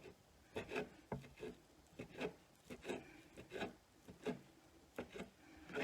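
Knife cutting cooked rotisserie chicken on a cutting board: a dozen or so short scraping and knocking strokes at an uneven pace.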